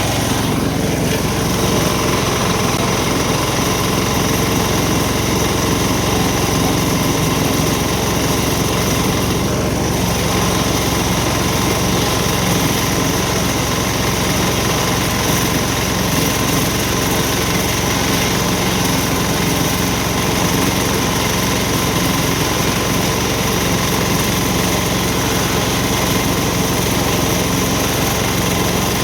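A small engine running steadily at a constant speed, with no change in pitch or loudness.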